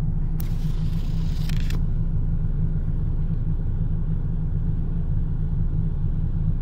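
Truck diesel engine idling steadily, heard inside the cab as a low rumble. A brief hiss starts about half a second in and lasts over a second.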